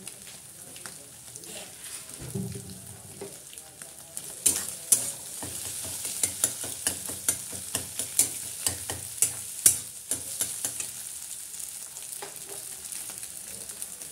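Scrambled eggs sizzling in oil in a metal kadai, with a steady hiss. From about four seconds in, a steel spatula stirs them, scraping and clacking against the pan about twice a second for several seconds.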